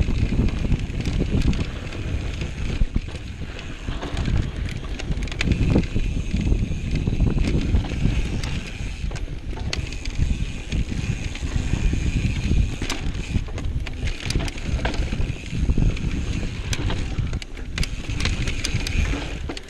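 Mountain bike riding over a dry dirt trail: steady wind buffeting the handlebar-mounted camera's microphone, with tyre rolling noise and frequent clicks and rattles from the bike over bumps.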